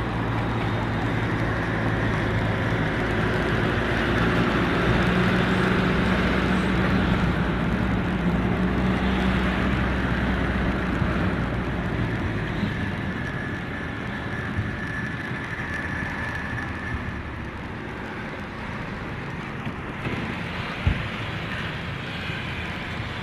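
Car engine and road noise heard from inside the cabin while driving; the engine hum is strongest in the first half and fades after about twelve seconds, leaving mostly tyre and road noise.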